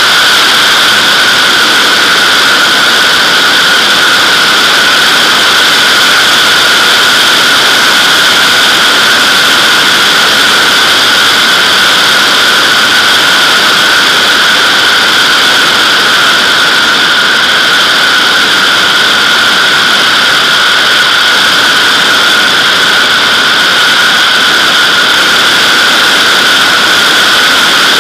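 Steady, loud wind noise from the airstream rushing over a camera mounted on the outside of a Nimbus-2 sailplane's fuselage in gliding flight, a hiss with a higher whistling edge and no engine.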